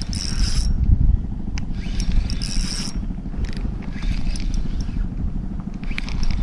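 Strong wind buffeting the microphone in a rough, uneven rumble, with two brief hissing bursts in the first three seconds.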